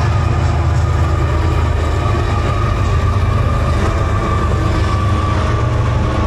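Train passing, a steady heavy rumble with a faint thin ringing tone above it in the middle of the pass.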